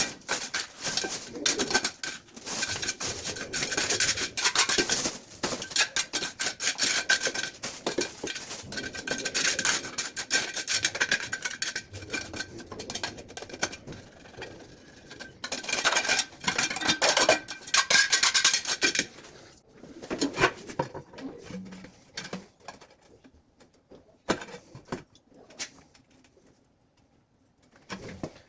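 Hand tool scraping and rubbing against ceramic tile in rapid, continuous strokes, then breaking off about two-thirds of the way through into a few scattered taps and clicks.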